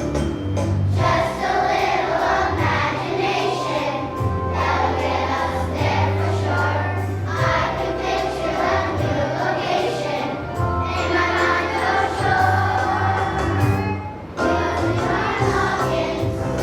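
Children's choir singing a song over musical accompaniment with sustained bass notes, with a brief break about 14 seconds in.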